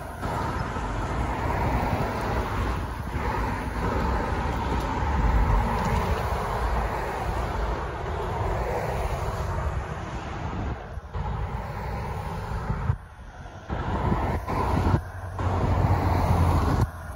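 Road traffic: cars driving past over the railroad crossing in a steady run, with the sound dipping briefly a couple of times near the end.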